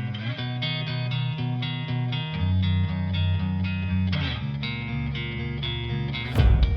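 Background music led by guitar: a quick, even run of plucked notes over a bass line, with one loud hit near the end.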